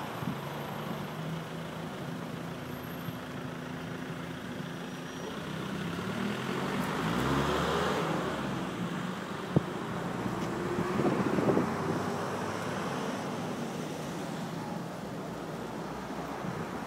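A 1999 Ford Falcon's V8 engine idling steadily, with road-traffic noise around it. About seven to nine seconds in, a louder swell of vehicle noise with sliding pitch builds and fades.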